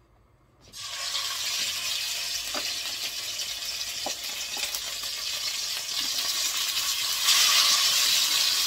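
Sous-vide-cooked chicken thighs hitting hot oil in a frying pan and sizzling. The sizzle starts suddenly about a second in and grows louder about seven seconds in as more chicken goes into the pan.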